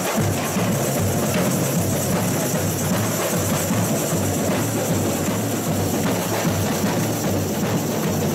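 A samba bateria, the percussion section of a samba school, plays together in a steady samba rhythm. Many tamborins are struck with sticks over the regular low beat of surdo bass drums.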